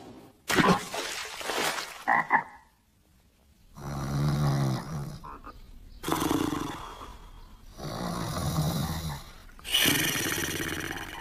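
A cartoon sleeper snoring: long rasping snores repeating about every two seconds, beginning about four seconds in after a few short sounds and a brief hush.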